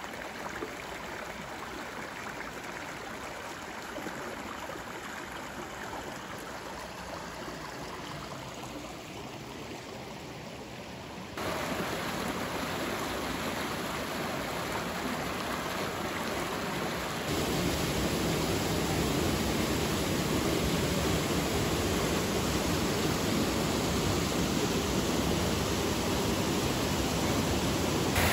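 Shallow creek water running over shale ledges and loose stones: a steady rush that steps up in loudness twice, about a third and two-thirds of the way through.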